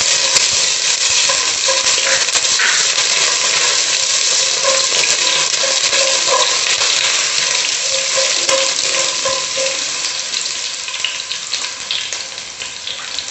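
Crushed ginger sizzling in hot coconut oil with dry red chillies and mustard seeds in a frying pan, a steady frying hiss that eases off a little toward the end.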